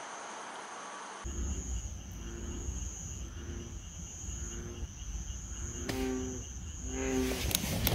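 Crickets chirring in a steady high trill, with a frog's low call repeating roughly once a second. A plain hiss fills the first second before the night sounds begin, and a few sharp clicks come near the end.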